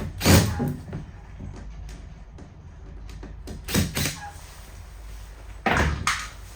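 Three heavy thuds, a few seconds apart, over a low steady hum.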